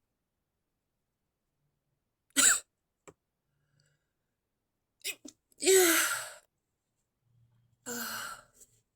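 A person's stifled sneezes. A short sharp one comes about two and a half seconds in; a longer, louder one with some voice in it follows around six seconds, and a weaker burst comes near the end.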